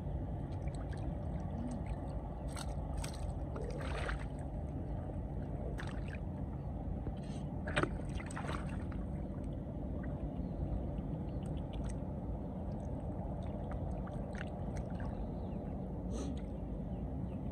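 Hands sloshing and splashing in shallow muddy water while grabbing catfish, with a few short sharp splashes, the loudest about eight seconds in, over a steady low rumble.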